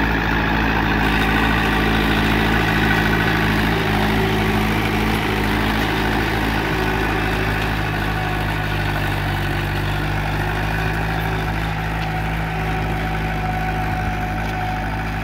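Mahindra Sarpanch 475 DI tractor's diesel engine running steadily under load while pulling a plough through the soil, with a roar. It grows slightly fainter near the end as the tractor pulls away.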